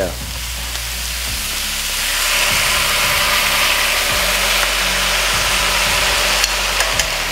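Stir-fry sauce poured onto steak and vegetables on a hot steel flat-top griddle, sizzling; the sizzle grows louder about two seconds in as more sauce hits the hot plate.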